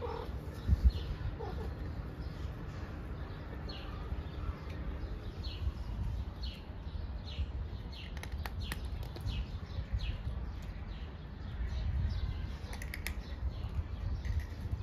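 Small birds chirping: a run of short, falling chirps repeated every half second or so, over a low rumble. In the second half a few crisp clicks come from a cat crunching dry kibble.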